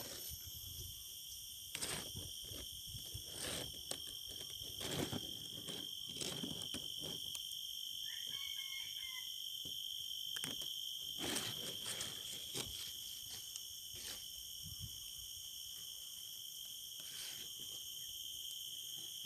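Steady high-pitched drone of a forest insect chorus, with irregular rustles and knocks from handling in the undergrowth during the first dozen seconds or so.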